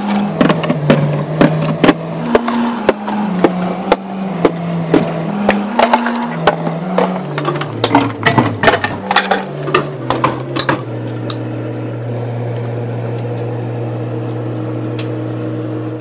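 Glass and plastic drink bottles clinking and knocking as they are set onto refrigerator shelves and into the door bin, over background music with a low bass line stepping from note to note. The clinking stops about eleven seconds in, leaving one held low note.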